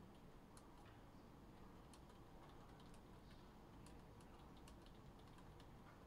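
Faint typing on a computer keyboard: scattered, irregular light clicks over a low steady room hum.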